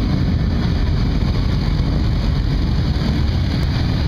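Engine of a six-wheeled swamp buggy running steadily as it drives through shallow water, a loud, even low rumble.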